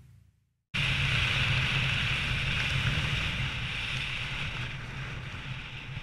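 Wind rushing over the microphone of a skydiver's body-mounted camera under an open parachute canopy. It starts suddenly after a moment of silence and slowly fades.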